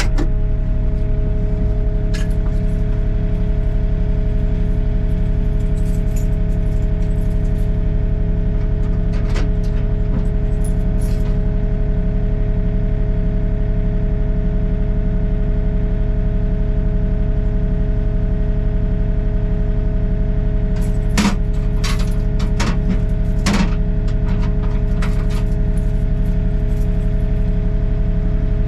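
Excavator's diesel engine running steadily while digging, with a few sharp metallic clinks, most of them bunched together near the end.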